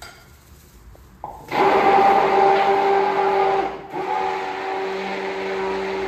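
Hand-held electric stick blender running in a jug of cold-process soap batter, mixing the oils with the lye water. It starts about a second and a half in with a steady motor hum, drops out briefly near four seconds, then runs again a little quieter.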